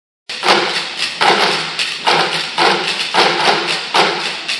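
Percussion ensemble beating sticks on plastic buckets and PVC pipes in a steady rhythm, with a strong accent about every three-quarters of a second and quicker strokes between; it starts a moment in.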